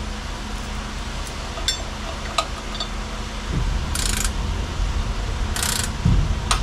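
Light metallic clicks of parts being handled, then two short rasps of a socket ratchet working a bolt on the engine's intake, over a steady low hum.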